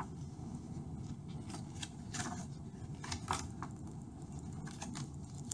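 Folded paper leaflets being handled and unfolded: irregular crisp rustles and crinkles of paper, over a low steady background hum.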